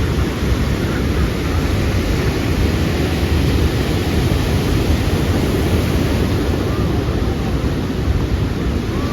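Pacific Ocean surf washing on the beach as a steady rush, mixed with wind buffeting the microphone.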